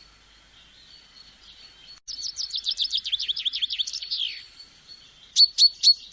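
Songbird singing: after two faint seconds, a quick run of short downward-sweeping notes, about five a second, ends in one longer falling note. Near the end a few loud, sharp chirps follow in quick succession, with faint high chirping behind.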